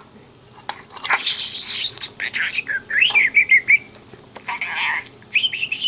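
Pet budgerigar chattering and whistling, with short rapid up-and-down chirps in two runs.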